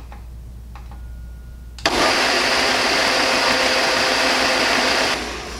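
Countertop blender switched on about two seconds in, running steadily for about three seconds as it mixes crepe batter, then switched off. A few faint clicks come before it starts.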